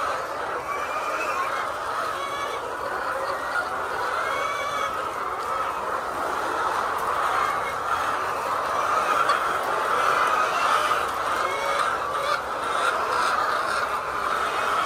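A flock of chickens clucking and calling all together in a continuous chorus, with short higher calls breaking out above it now and then.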